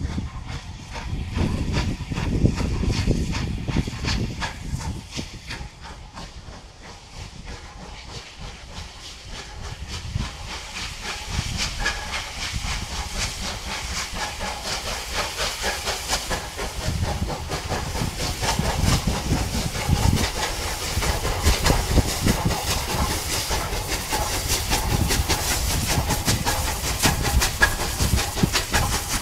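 West Country class 4-6-2 steam locomotive 34067 Tangmere working hard as it pulls a train away: a rapid rhythmic exhaust beat with steam hiss, growing louder as it comes past, with coaches rolling by near the end.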